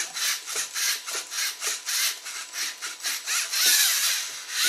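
Geared servo motors of a two-wheeled, self-balancing LEGO Mindstorms NXT robot whirring in short back-and-forth bursts, about four a second, as the robot rocks to hold its balance. Near the end comes a longer, louder whir as the robot lurches forward and starts to fall.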